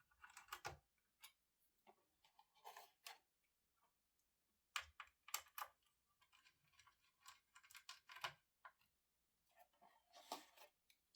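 Faint, scattered clicks and light scrapes of a screwdriver and small screws being worked out of a GTX 980 Ti graphics card during disassembly.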